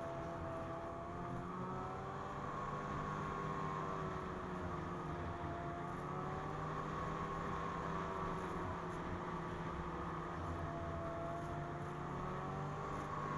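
Two-stroke engine of a Ski-Doo MXZ 600 Carb Sport snowmobile running at speed on the trail, its pitch easing gently up and down with the throttle.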